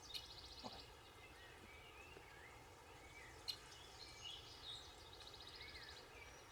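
Faint songbirds chirping, with a fast high trill near the start and again past the middle, over quiet outdoor background.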